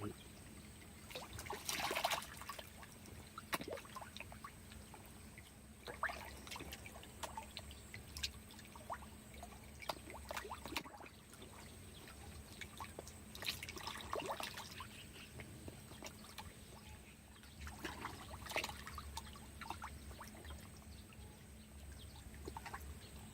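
Water splashing and trickling in short bursts every few seconds, faint, over a low steady hum.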